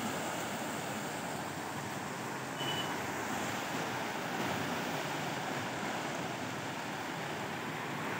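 Steady rushing of a fast-flowing river in flood, mixed with wind on the microphone. A brief high tone sounds once, about a third of the way in.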